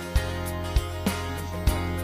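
Background music with sustained tones and a regular beat.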